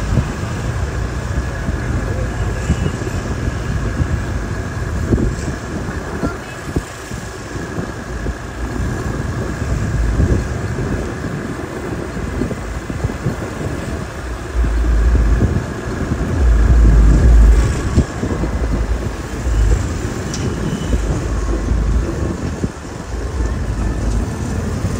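City street traffic: vehicles passing continuously, with a heavier low rumble swelling about two-thirds of the way through.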